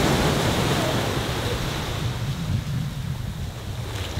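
Sea waves washing in, with wind buffeting the microphone as a low rumble; the wash is loudest in the first half and eases off about two seconds in.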